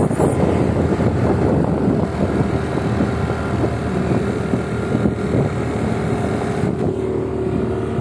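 Motorcycle engine running steadily while riding, with road and wind noise on the microphone.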